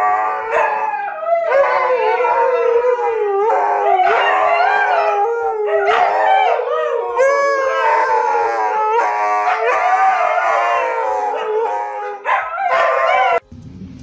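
Several dogs howling together in a loud chorus, their long wavering howls overlapping and rising and falling in pitch; the chorus breaks off suddenly near the end.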